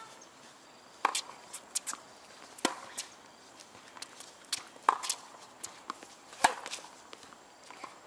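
Tennis rally on a hard court: sharp pocks of the ball off racket strings and court, the loudest every second and a half to two seconds, with lighter shoe scuffs and footsteps between.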